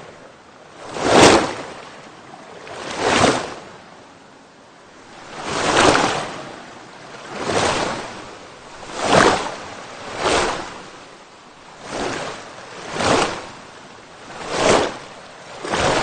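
Water rushing in repeated surges: about ten swells, each rising and falling away within a second, coming at uneven gaps of one to two and a half seconds over a lower steady wash of water.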